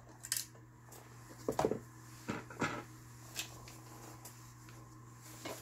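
About six small separate clicks and taps as a bobbin case is fitted into the hook of a Yamata FI900 household sewing machine, over a steady low hum.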